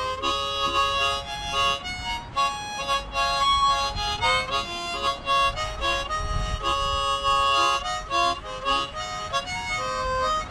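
Harmonica playing a tune of short, quick notes and chords.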